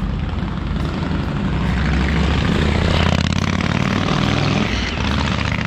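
Harley-Davidson Shovelhead 1200 V-twin engine running loud, with a deep low rumble. It builds to its loudest about halfway through and then fades, like a motorcycle riding past. The engine is running on its newly fitted Dyna-S electronic ignition.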